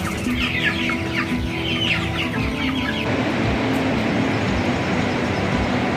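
A flock of 28-day-old chickens clucking busily for about three seconds, then an abrupt cut to a steady rushing noise.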